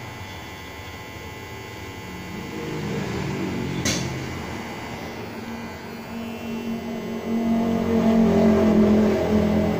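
Enchen Hummingbird T-blade trimmer running with a steady buzzing hum as a tuft of hair is pushed into its blade to test the cut. The hum swells about three seconds in and again from about seven seconds, with a single sharp click just before four seconds.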